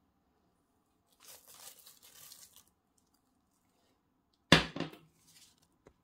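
Toasted flaked almonds sliding and pattering out of a bowl with a dry rustle for about a second and a half, then a single sharp knock, the loudest sound, about four and a half seconds in, followed by a few light clicks.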